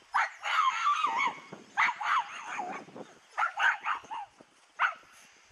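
Canines yelping and whining: short sharp yips about every second and a half, each trailing into a wavering whine.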